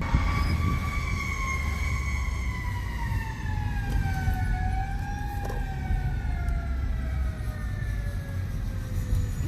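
Fire truck siren winding down, its pitch falling slowly and steadily over about nine seconds with a brief small lift about halfway through, over the low rumble of the truck.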